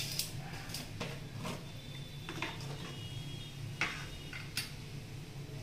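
Light clicks and taps as batasha sugar drops are set down on small brass offering plates and vessels, about six separate clicks, over a steady low hum.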